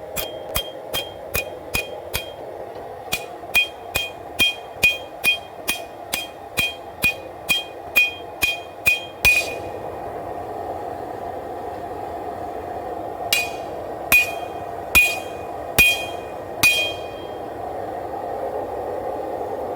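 Hand hammer striking hot W-2 steel on an anvil, a quick run of about two to three ringing blows a second for roughly nine seconds, then after a pause five slower blows about a second apart. A steady roar runs underneath throughout.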